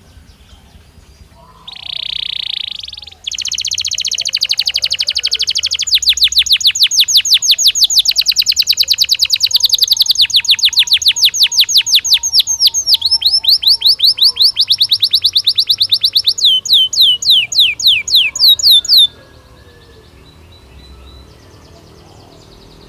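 Belgian canary singing one long song: a short buzzy phrase, then a fast high trill, then a long run of rapid down-slurred notes that slows to fewer, longer down-sweeping notes before stopping abruptly.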